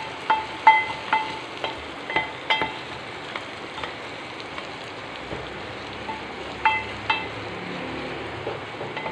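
Sliced onions and ginger-garlic paste frying in oil in an aluminium pot, a steady sizzle. A plastic spatula stirs and knocks against the pot, which rings briefly with each knock: a quick run of knocks in the first few seconds, then two more about seven seconds in.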